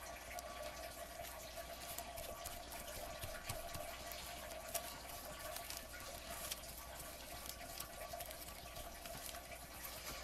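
Faint steady hiss with a faint hum, and a few soft ticks from handling the wet newsprint and gel medium.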